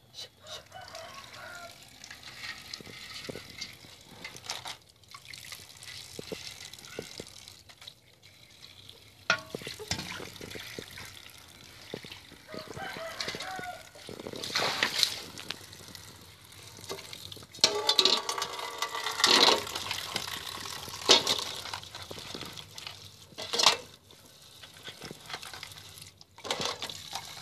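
Crabs being washed by hand in an aluminium pot under a running outdoor tap: water trickling and splashing, with sloshing and the clatter of shells against the metal pot every few seconds.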